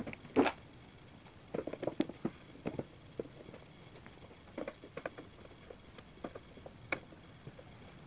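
Faint, irregular clicks and scrapes of a screwdriver turning out bolts from the plastic body of a twin-tub washing machine.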